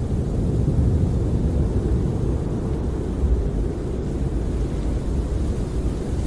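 Snowstorm wind blowing against a camper: a steady, deep rushing noise that swells and eases a little, with no separate gusts or knocks.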